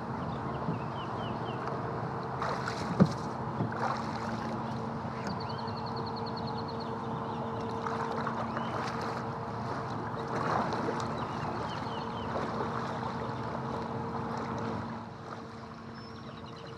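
Kayak paddle strokes splashing and water sloshing around a Tucktec folding kayak's hull as it is paddled off through shallow water, with a single sharp knock about three seconds in. A steady low hum runs underneath and stops shortly before the end.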